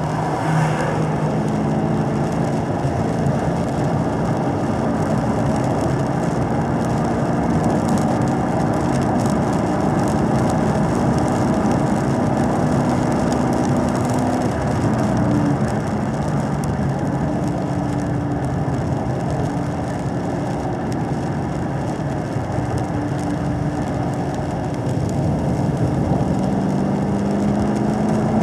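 2017 Camaro SS 1LE's 6.2-litre V8 running at mid revs under part throttle, heard from inside the cabin, its pitch shifting a little with the throttle and rising slightly near the end. Steady hiss of the tyres on the wet track underneath.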